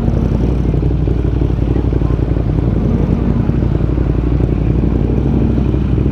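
Ducati motorcycle engine running steadily while riding, with wind rushing past the helmet-mounted camera.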